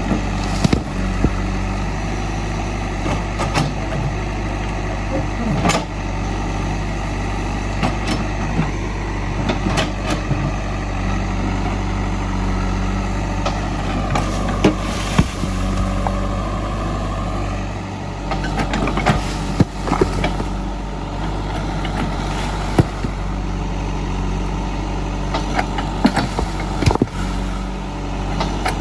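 JCB 3DX backhoe loader's diesel engine running steadily at work, with frequent short knocks and clanks scattered through it.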